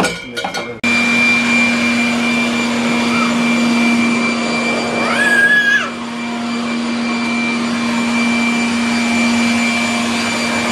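Corded electric leaf blower running steadily, a low hum and a high whine over a rush of air, starting abruptly about a second in. A short high-pitched child's voice rises over it about five seconds in.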